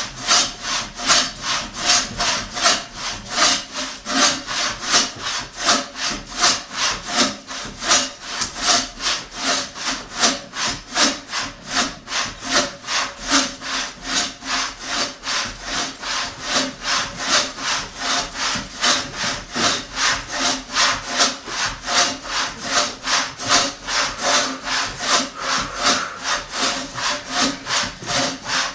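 A hand saw cutting through a wooden log in a steady, even rhythm of back-and-forth strokes.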